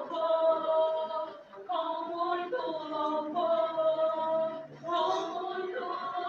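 Singing: a sung melody in long held notes, in phrases of a second or two with short breaks between them.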